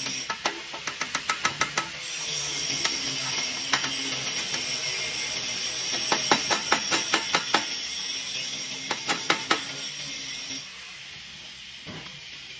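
Hand hammer tapping metal band clamps onto an exhaust pipe in quick runs of sharp metallic taps with pauses between. A steady hiss runs behind them and drops away near the end.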